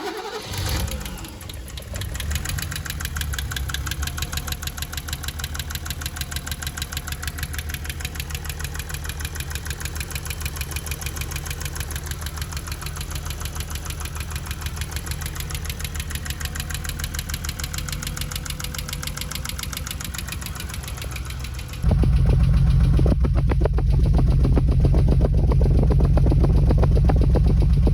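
BMW M30 straight-six engine idling with a rapid, even tapping in time with the engine, a noise that came on suddenly while driving and that the owner is tracing to the valvetrain under the rocker cover. About three quarters of the way through the sound turns abruptly louder and deeper.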